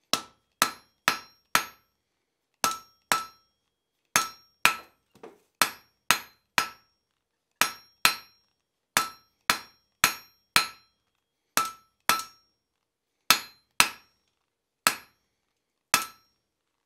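Hand hammer striking a hot Atlantic 33 (Flutagon) steel bar on an anvil, drawing a light taper on the struck end of a chisel. The sharp blows come about two a second in short runs of two to four with brief pauses, each with a short metallic ring.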